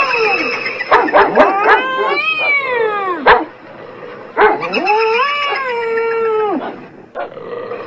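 A cat yowling and a dog barking back and forth, with short sharp barks about a second in and a sharp click just after three seconds. A long drawn-out wail that rises, holds and then falls follows about halfway through.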